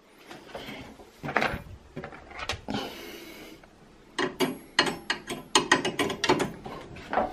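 Small hard objects being handled and rummaged through on a shelf: scattered light clicks and knocks, a short rustling scrape about three seconds in, then a quick run of rattling clicks through the last three seconds.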